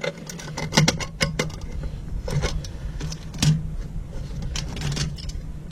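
Scattered sharp clicks and clinks of small metal parts and the pedal's metal enclosure being handled during disassembly, about a dozen over a few seconds, over a steady low hum.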